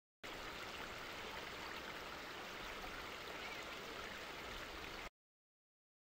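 Shallow rocky stream running over stones in a steady, even rush of water. It starts abruptly just after the beginning and cuts off suddenly about five seconds in.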